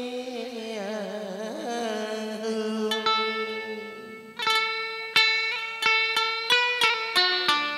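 Instrumental interlude of Vietnamese cải lương music on electric guitar and đàn sến (two-string moon lute): wavering, bending notes at first, then a run of crisply plucked, ringing notes from about three seconds in.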